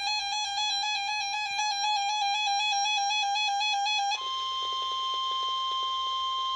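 A warbling electronic alert tone, rapidly wobbling in pitch, stops suddenly about four seconds in. It is replaced by the steady single-pitch NOAA Weather Radio warning alarm tone heard over radio static, which signals that a warning message follows.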